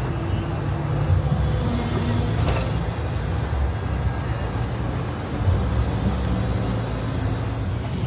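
Heavy diesel construction plant running steadily: tracked excavators and a mobile crushing or screening plant give a continuous low rumble, with a couple of brief louder knocks.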